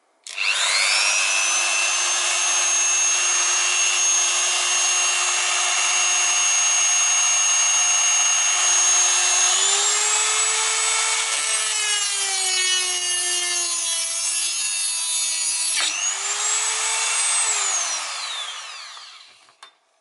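A Dremel rotary tool with a thin 409 cut-off wheel starts up and runs with a steady high whine. About halfway through, the pitch rises and wavers as the wheel cuts the workpiece. Near the three-quarter mark a sudden break in the sound marks the wheel shattering from vibration, after which the tool runs up again and winds down after being switched off.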